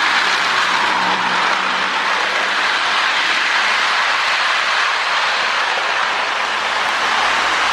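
Two Lionel NW-2 switcher locomotives running together on three-rail toy track, pulling a train: a steady whir of motors, gears and wheels on the rails.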